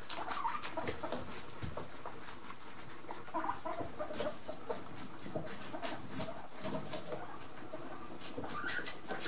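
Several guinea pigs munching a romaine lettuce leaf: a run of many quick, crisp crunching bites. Short squeaks and chirps from the guinea pigs come now and then.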